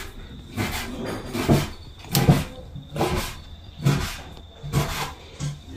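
Repeated short scraping knocks, roughly one a second, from kitchen work on fish being prepared for kinilaw.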